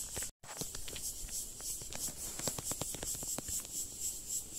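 Steady high drone of insects, with many irregular light crackles and ticks over it and a brief gap of silence just after the start.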